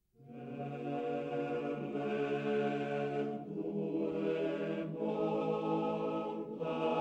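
Background music: slow, chant-like held chords, starting just after a moment of silence and shifting to new chords a few times with brief breaks between.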